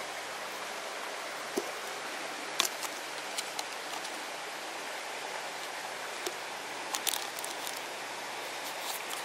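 Steady outdoor hiss with a few scattered light clicks and rustles as a plastic food-storage container is opened and its contents handled.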